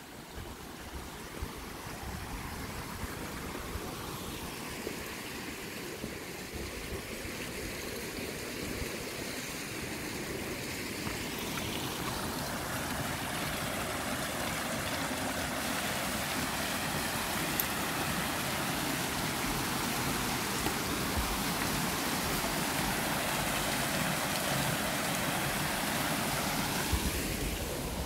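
Water of a small rocky mountain stream running down a cascade into a pool: a steady rush that grows gradually louder.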